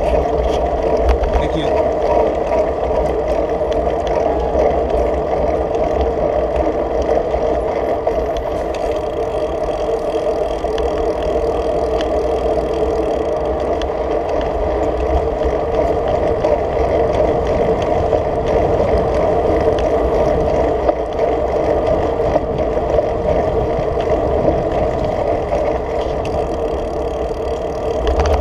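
Steady wind noise and road rumble picked up by a handlebar-mounted camera on a moving road bike.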